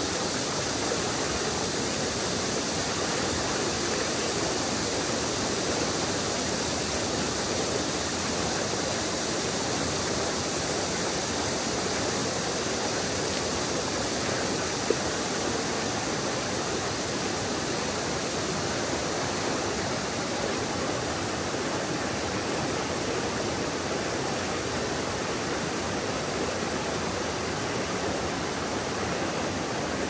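Rough river water flowing in a steady rush, with one brief click about halfway through.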